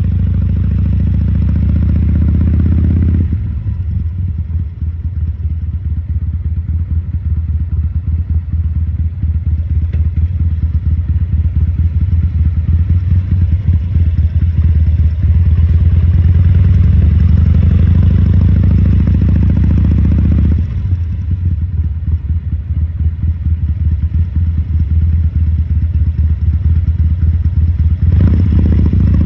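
A 2014 Harley-Davidson Sportster XL1200C's air-cooled 1200 cc V-twin is running under throttle at the start, then dropping to a low, lumpy, uneven beat when the throttle is closed. About ten seconds in it builds steadily under throttle for about ten seconds, then falls back to the lumpy low beat. Near the end it gives a short blip of throttle.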